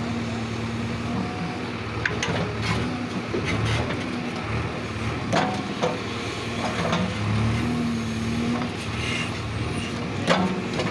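JCB 3DX backhoe loader's diesel engine running under hydraulic load while the backhoe bucket works soil into the hole around a pole, its pitch dipping and rising. A few sharp knocks come through, the loudest near the end.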